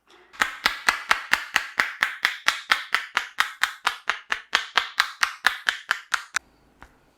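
Barber's hands striking the head in a rapid percussive head massage, sharp, clap-like slaps in an even rhythm of about five a second, stopping abruptly about six seconds in.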